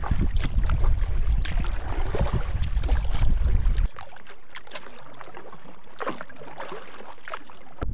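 Canoe paddle strokes splashing in river water under a heavy rumble of wind on the microphone; about four seconds in it cuts to a quieter stretch of calm water with only a few soft paddle splashes.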